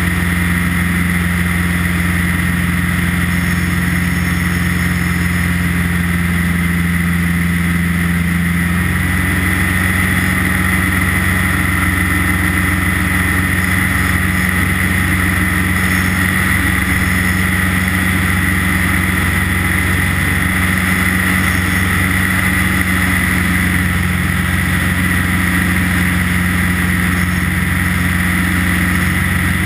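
Light aircraft's engine and propeller giving a steady drone in cruising flight, with the engine note shifting slightly about nine seconds in.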